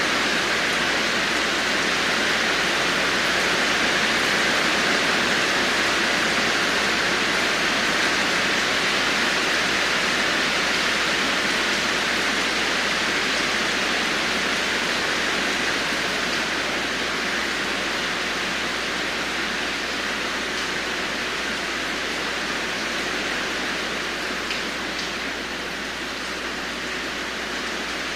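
Heavy rain falling steadily, a dense even hiss that eases a little in the second half.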